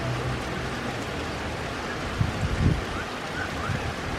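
Heavy rain falling steadily on paved ground and grass, an even hiss of drops hitting wet pavement. A few low rumbling bumps come in a little over two seconds in.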